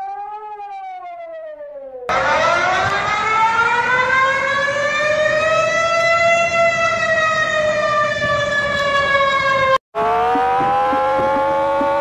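Three emergency alert siren sounds in a row. Singapore's alert tone, rising then falling in pitch, ends about two seconds in. Malaysia's much louder alert siren follows, slowly rising and falling for about eight seconds, then cuts off, and Iran's alert siren begins with a slowly rising wail over a fast pulse.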